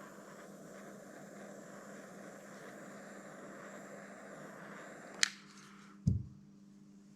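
Heat gun blowing steadily while shrinking heat-shrink tubing over a soldered wire joint. It is switched off with a sharp click about five seconds in, and a knock follows a second later.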